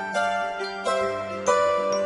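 Background music with bright chiming notes over sustained lower tones, a new note struck about every three-quarters of a second.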